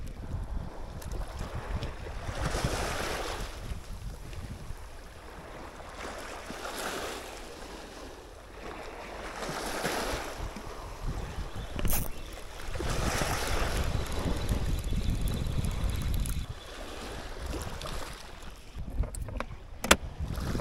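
Small waves washing onto a stony shore, swelling and falling back every few seconds, with wind buffeting the microphone. A single sharp click about halfway through.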